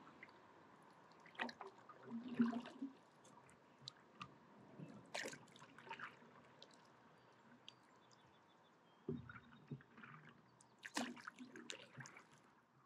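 Quiet, irregular splashes and drips of lake water as a stand-up paddleboard paddle dips in and is drawn through in slow strokes, a louder splash every few seconds with water trickling off the blade between.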